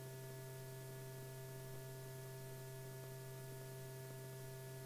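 Steady electrical hum with a faint hiss underneath, unchanging throughout, with no handling or tool sounds.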